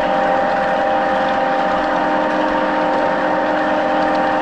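G-scale model diesel locomotive running along the track, heard close up: a steady motor-and-gear hum made of several held tones over rolling wheel and track noise.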